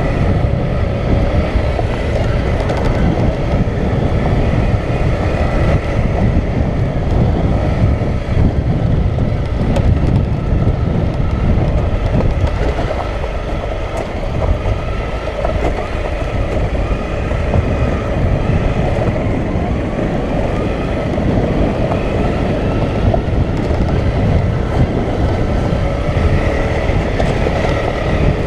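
Single-cylinder dual-sport motorcycle engine running steadily at low speed while being ridden over a rough, rocky dirt track, with continual rattling and jolting from the bike bouncing over loose rock, heard from a helmet-mounted camera.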